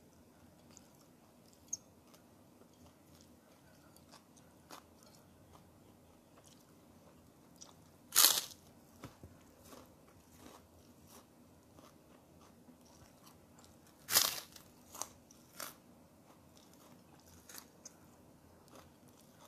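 Eating sounds of a person chewing goat satay and rice eaten by hand: quiet chewing with scattered small mouth clicks, broken by two loud, sharp, short noises about eight and fourteen seconds in.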